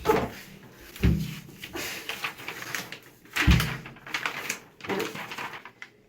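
A series of heavy thumps and knocks: one at the start, one about a second in and a louder one about three and a half seconds in, with scuffling and knocking between them.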